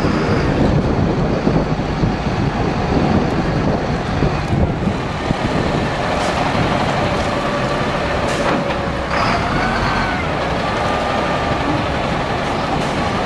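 Heavy vehicle running amid loud city traffic noise. In the second half a faint squealing tone comes and goes, curving up and down about nine seconds in.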